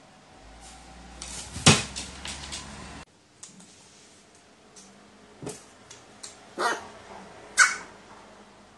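A pet crow making short, sharp sounds. There is one loud snap a little under two seconds in, then a few short sharp sounds as it pecks at and picks up a scrap of paper on a wooden floor, with the loudest near the end.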